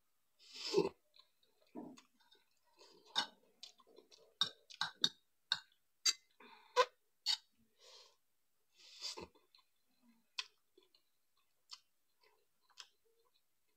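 A person slurping noodles and chewing with an open mouth: a short slurp about half a second in and another about nine seconds in, with a run of wet clicks and smacks from chewing between them.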